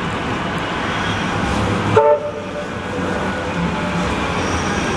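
Street and rail vehicle rumble with a short pitched horn toot about two seconds in, after which the background noise changes abruptly.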